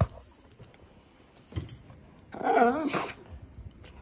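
Miniature poodle giving a short, wavering whine a little over two seconds in, lasting under a second, begging for a treat. A single click comes just before it.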